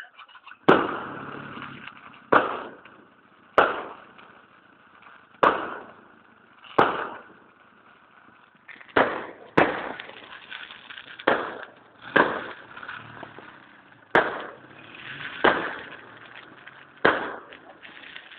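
Aerial firework shells bursting one after another, about a dozen sharp bangs a second or two apart, each trailing off in a fading echo, with a short lull about halfway through.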